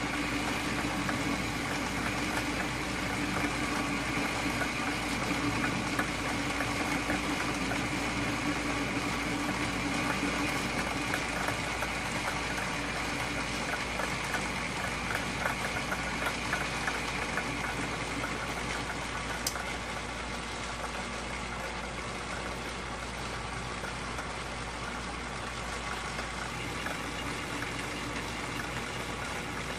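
Atlas metal lathe running with its chuck spinning while the cutting tool takes a cut of about twenty thousandths in the workpiece: a steady machine hum with cutting noise. It eases a little about two-thirds in, where there is one short sharp click.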